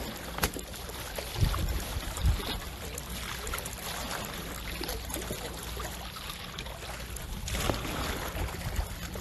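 Seaside water and wind noise, a steady wash, with a few dull knocks in the first couple of seconds.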